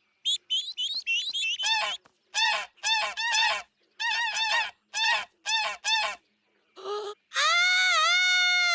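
Cartoon voice imitating goose calls: a quick run of short twittering chirps, then a string of short honks about twice a second, then one long held honk near the end.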